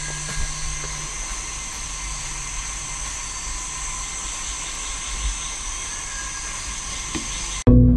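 Tropical rainforest ambience: a steady, high-pitched insect chorus over a low rumble. Near the end it cuts abruptly to synthesizer music.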